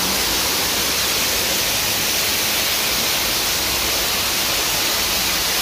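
Man-made waterfall pouring down artificial rockwork and splashing into a pool: a steady, even rush of falling water, heard close.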